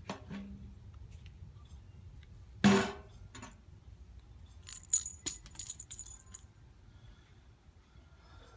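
A single sharp knock about three seconds in, then a couple of seconds of light metallic jingling and clinking with bright ringing tones.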